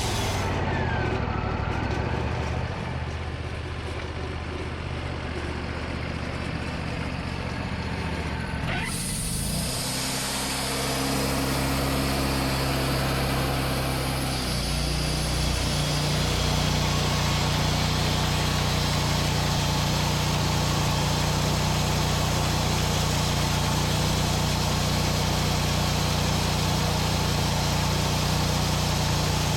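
Portable sawmill engine running, its speed dropping early on, then changing again around the middle and settling into a steady, louder run for the rest.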